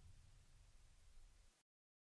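Near silence: a faint low rumble that cuts off to dead silence about one and a half seconds in.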